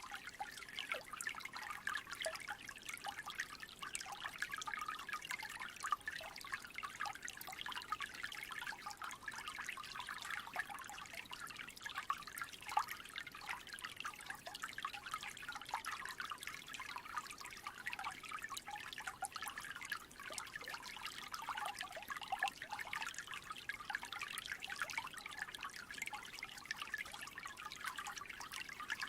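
Small creek trickling steadily: a dense, even patter of little splashes and gurgles.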